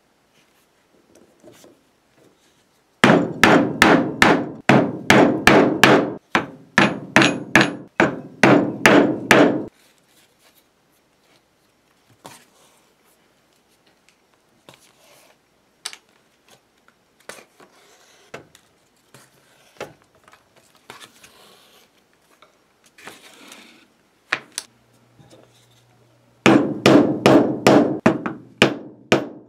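A mallet striking a multi-prong pricking iron (diamond stitching chisel) to punch stitching holes through leather. A fast run of sharp knocks, two to three a second, lasts about six seconds. Then there are quiet handling and tool-clatter sounds, and near the end the knocking starts again.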